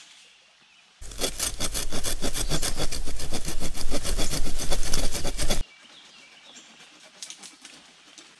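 Survival knife sawing through a green sapling with fast, even back-and-forth strokes. The sawing starts suddenly about a second in and stops abruptly after about four and a half seconds.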